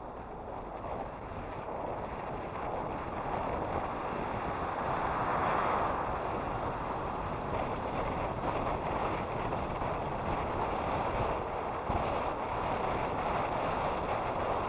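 Steady rushing noise of street traffic with wind on the microphone, swelling and easing a few times.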